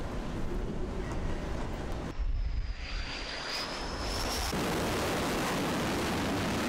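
Fighter jet's engines on an aircraft carrier deck. A high steady whine comes about two seconds in, then a loud, steady roar from about four and a half seconds in. Wind and sea noise come before it.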